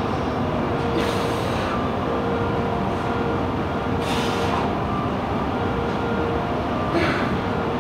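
Steady gym background noise, with a short forceful hissing exhale about every three seconds as dumbbells are pressed up during a set of incline-bench shoulder raises.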